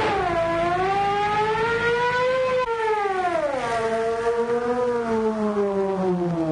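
Police car siren wailing in a long, slowly wavering tone. A second, lower siren wail joins about halfway through, and both begin to fall in pitch near the end.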